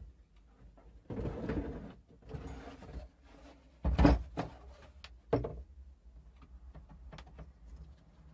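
Handling sounds of tools at a wood lathe: a rustling stretch, then clunks and knocks, the loudest a heavy thump about four seconds in and a sharper knock a second and a half later, with small clicks between.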